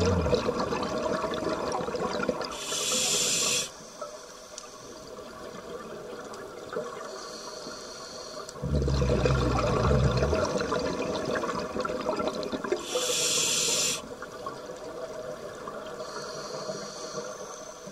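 Scuba regulator breathing underwater, two breaths: bubbling exhalations at the start and about nine seconds in, and a short hiss of air drawn through the regulator around three seconds and again around thirteen seconds in.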